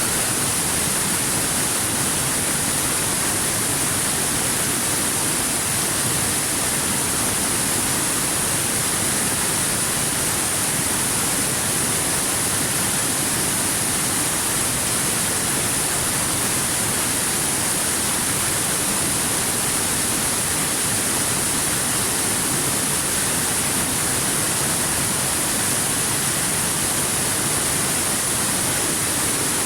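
Waterfall rushing: a steady, unchanging wash of falling water with a strong high hiss.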